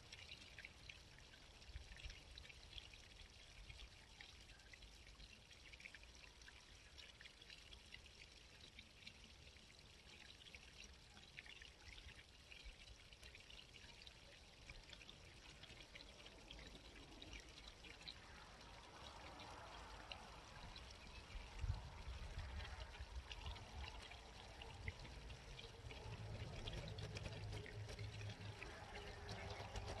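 A small country stream trickling and babbling faintly and steadily. A low rumble swells in over the last ten seconds or so.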